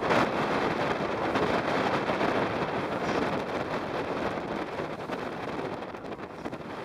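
Wind blowing across the microphone over the wash of a choppy sea, with a brief louder burst just after the start.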